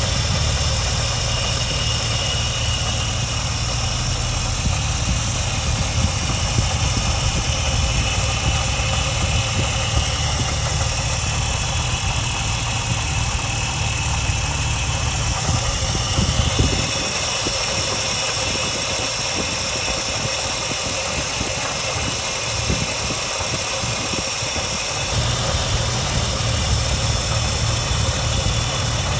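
BMW E30 engine running, with a high whistling and grinding noise over the engine sound. The low engine rumble drops away for several seconds past the middle, then returns.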